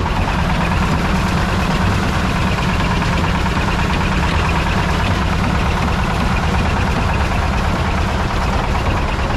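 Gem washing machine running steadily: its small stationary engine drives the washing drum by belt, with a low steady engine rumble under the rushing of muddy wash water pouring from its outlet pipe.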